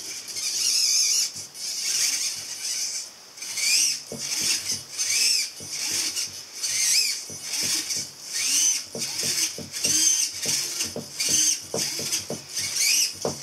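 Hobby servo motors of a 3D-printed robot arm whirring in repeated short bursts as the arm moves, each whir rising and then falling in pitch, with light clicking in between.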